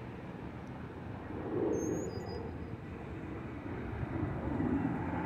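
Road traffic passing over a railroad grade crossing: car engine and tyre noise that swells about two seconds in and again near the end as an SUV drives across the tracks.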